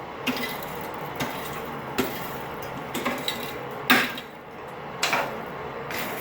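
Metal clanking of tongs and steel stock at a blacksmith's forge while the piece heats in the fire: sharp knocks about once a second, the loudest about four seconds in, over a steady rushing background.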